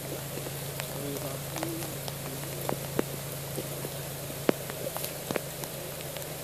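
Steady rain falling, with scattered sharp raindrop taps close by, over a steady low hum.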